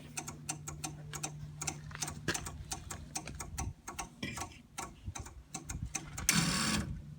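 Rapid, steady ticking, about three to four ticks a second, over a low hum from an MEP-002A military diesel generator while its glow plugs are preheated before a cold start. A short, louder burst of noise comes about six seconds in.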